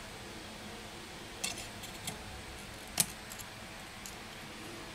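Light clicks and taps of tweezers working at the display connectors inside an opened iPad Air 2: a few short clicks about a second and a half in, the sharpest one about three seconds in, and a few lighter ones after.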